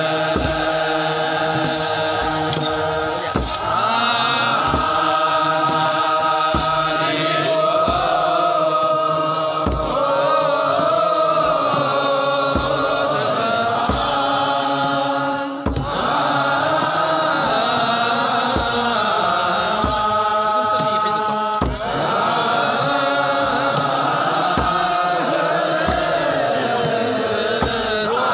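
Ethiopian Orthodox wereb chant: a chorus of men's voices singing a slow, drawn-out melody together, with a drum struck steadily about once a second.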